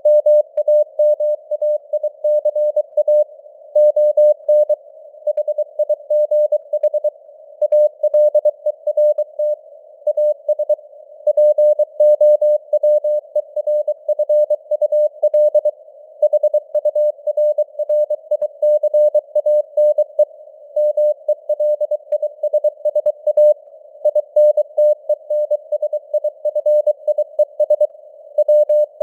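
Morse code (CW) at 23 words per minute: a single steady mid-pitched tone keyed on and off in quick dots and dashes, with a faint hiss of simulated radio noise around the tone between the characters.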